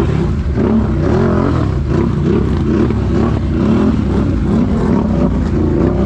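ATV engine revving hard under load while churning through a deep mud hole, its pitch rising and falling again and again with the throttle.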